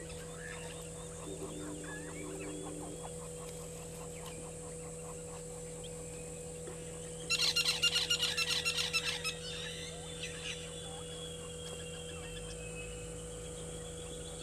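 Egyptian goose calling: a loud, rapid series of harsh honks lasting about two seconds midway, over faint background birdsong.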